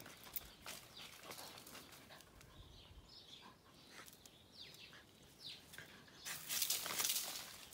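A dog on a leash sniffing and moving about, with scattered soft clicks and short chirp-like sounds, and a louder rush of noise lasting about a second some six seconds in.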